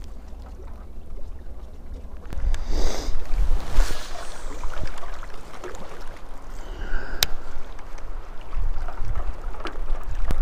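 Wind buffeting the microphone in gusts, strongest a few seconds in, over small waves lapping a rocky shore, with one sharp click about seven seconds in.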